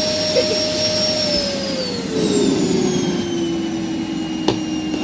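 Household vacuum cleaner running, a steady motor whine over a rushing hiss. Its pitch slides down about a second and a half in, then holds steady. One sharp click near the end.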